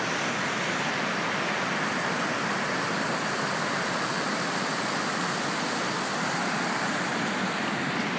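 Fast-moving floodwater in a swollen creek rushing steadily, an even wash of water noise.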